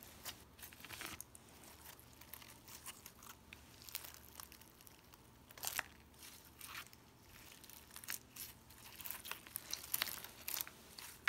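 Thick, overactivated slime packed with small pebbles being squeezed and stretched by hand, giving soft, irregular crunches and crackles. There is a louder crunch about halfway through, and the crackling comes more often near the end.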